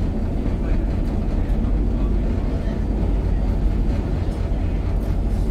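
Tyne and Wear Metrocar (Class 994) running along the track, heard from inside the front of the car: a steady low rumble of wheels on rails.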